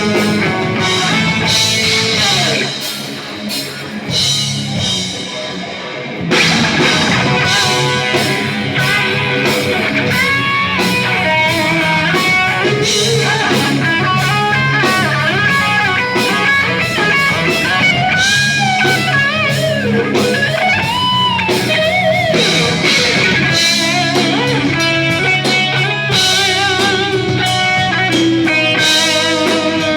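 Rock music with guitars and a drum kit, with a quieter passage a few seconds in before the full band comes back in with a lead guitar line.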